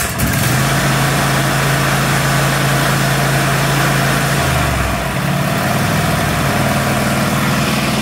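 Kohler SV710 engine on a riding mower starting on carb cleaner sprayed into the intake and running smoothly at high throttle. Its note changes about halfway through and settles a little higher.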